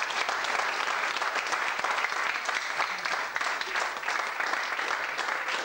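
Audience applauding: many hands clapping steadily in a hall.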